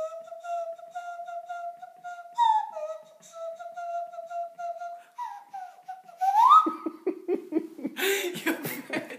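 A tune made with the mouth for a song-guessing game: a string of short, mostly repeated notes over faint even clicks, sliding up sharply about six seconds in, then giving way to laughter.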